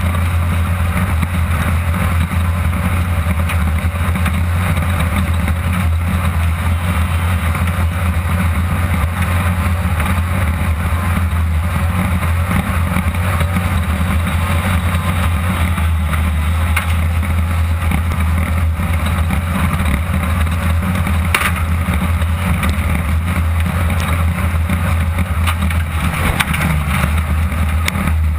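Class 2-1600 off-road race buggy's 1600 cc air-cooled VW engine running steadily at speed, heard from inside the car, with a rough rushing noise over it and a few sharp knocks from the chassis later on.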